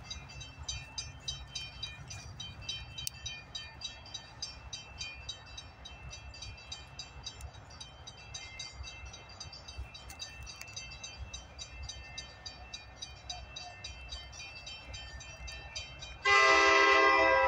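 Horn of an EMD F40PHR locomotive, Amtrak 281, sounding a long chord of several notes that starts suddenly near the end and is the loudest sound. Before it there is only a steady, high, rhythmic chirping, about four a second, over a low rumble.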